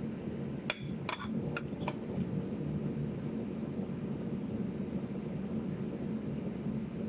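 A metal serving spoon clinking four times against the salad bowl within the first two seconds as the salad is tossed, over a steady low hum.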